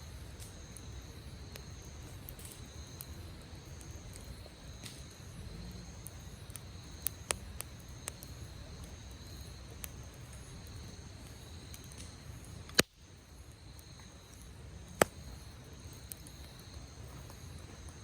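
Wood campfire crackling with scattered sharp pops, two much louder ones in the second half, over a low steady rumble.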